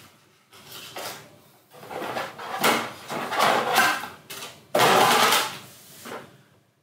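Paper sheets and a small empty cardboard box being handled and rustled, in several separate bursts with sudden starts; the loudest comes about five seconds in.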